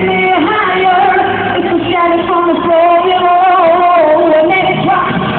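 Live pop music: women's voices sing held, wavering notes over a band.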